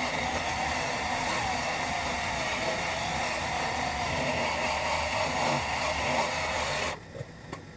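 Workpro 12-volt cordless 3-inch sander/polisher running steadily with its pad held flat on a plastic headlight lens under light pressure. The motor whine wavers a little, then cuts off suddenly about seven seconds in as the tool is switched off.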